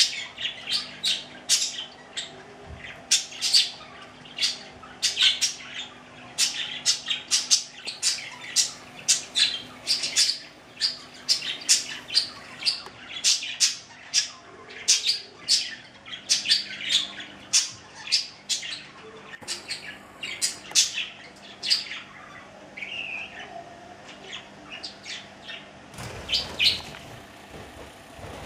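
Budgerigars chirping and squawking in quick, busy runs of short calls that thin out over the last few seconds, over a faint steady hum.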